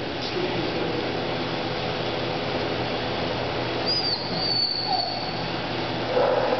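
Steady rushing background noise, with a brief faint high squeak about four seconds in.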